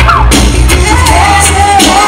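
Loud dancehall reggae music with a heavy bass line and a singing voice.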